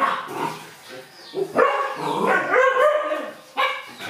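Dogs barking and yipping, a string of short high calls that bend in pitch, with brief pauses between them.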